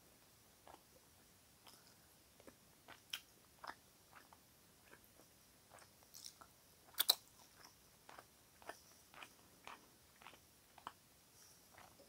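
Close-up eating sounds of roast chicken eaten by hand: soft, irregular chewing and wet mouth clicks, with a sharper double click about seven seconds in.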